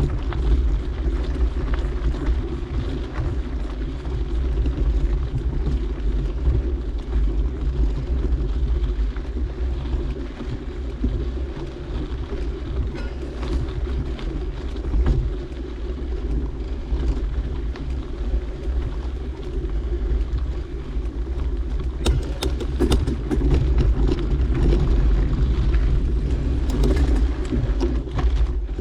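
Wind rumbling on the microphone over the steady sound of mountain bike tyres rolling on a dirt trail, with a stretch of clattering and knocking from the bike about three-quarters of the way through.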